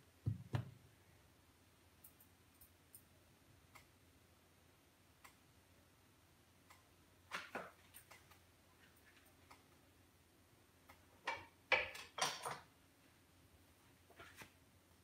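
Sparse light clicks and knocks from a hand handling the recording phone, with a soft thud near the start and the loudest cluster of clicks about three-quarters of the way through.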